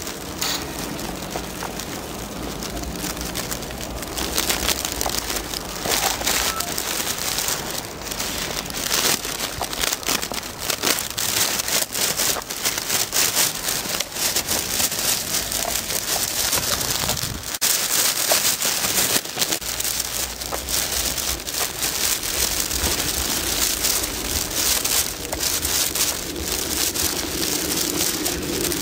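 Walking through deep snow: a dense crackling hiss of crunching footsteps and the rustle of jeans frozen stiff with melted and refrozen snow.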